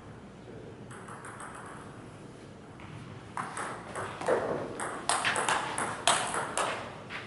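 Table tennis rally: the plastic ball clicks sharply off the rubber paddles and the JOOLA table in quick succession, starting about three seconds in and running several hits a second.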